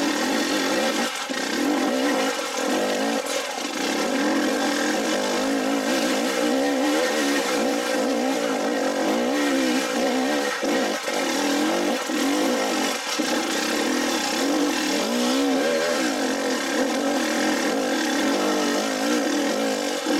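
Dirt bike engine running under load on a rocky climb, its pitch rising and falling again and again as the throttle is worked.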